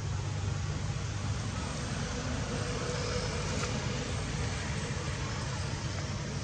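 Steady low rumble with an even hiss of outdoor background noise, unchanging throughout.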